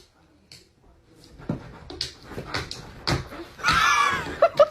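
A dog whimpering: a short whining cry that rises and falls, preceded by a few soft knocks.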